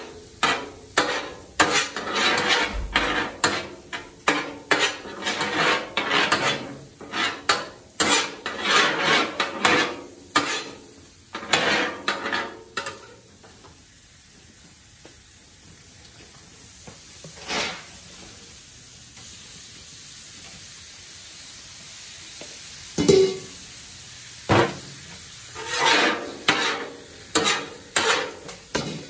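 Metal spatulas scraping and chopping cauliflower rice on a Blackstone flat-top steel griddle in quick, repeated strokes, over a steady sizzle of frying food. The strokes stop for several seconds midway; then come two sharp metal clanks and a final run of scraping near the end.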